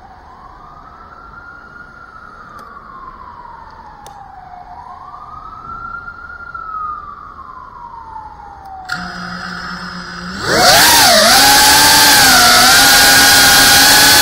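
A siren wails faintly, slowly rising and falling in pitch. About nine seconds in, an FPV quadcopter's brushless motors start with a low steady whir. A second later they spin up loud into a high, wavering whine as the drone takes off and flies.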